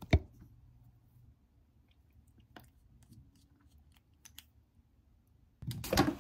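A sharp click at the start, then faint scattered small clicks and taps, with a louder burst of rustling and clicks near the end.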